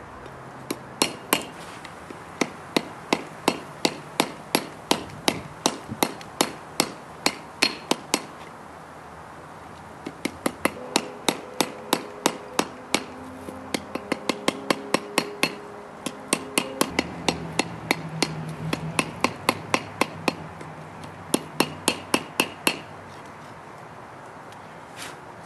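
Hand hammer striking a glowing-hot blade of forge-welded wrought iron and 1084 high-carbon steel on a steel anvil, forging the knife to shape. The blows come in runs of about three a second, some ringing briefly off the anvil, with a pause of about two seconds a third of the way in and two last blows near the end.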